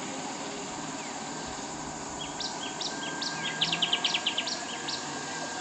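A small bird calling in a series of sharp, high chirps that begin about two seconds in and quicken into a rapid trill of about eight notes before stopping near the end, over a steady outdoor background hiss.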